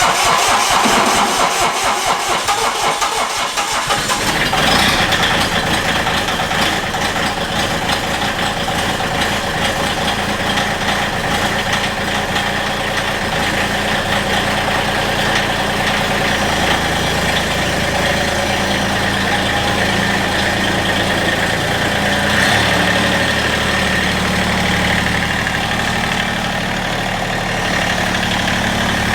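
Tractor engine running steadily just after being started, rough for the first few seconds and then settling into an idle; its pitch shifts about 22 seconds in.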